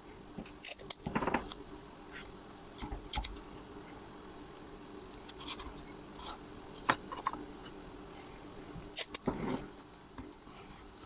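Light knocks and clicks of small wooden parts and hand tools being handled on a workbench, coming in several short clusters, the sharpest click about seven seconds in and the loudest cluster about nine seconds in.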